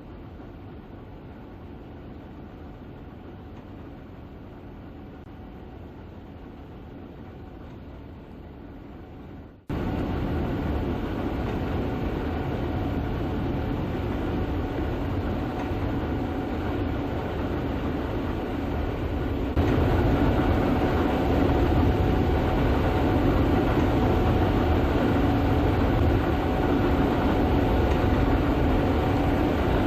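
Gleaner S98 combine harvester running steadily while harvesting soybeans: a continuous mechanical drone with a steady hum through it. It gets abruptly louder about ten seconds in and again about twenty seconds in.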